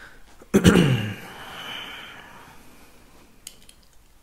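A man coughs once, sharply, about half a second in. A quiet pause with a few faint clicks follows.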